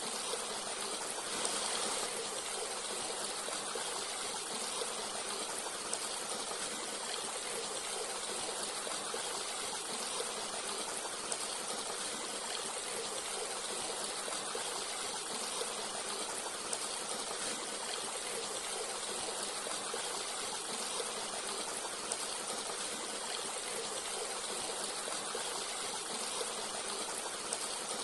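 Forest stream running and trickling steadily, with small brief splashes every second or two.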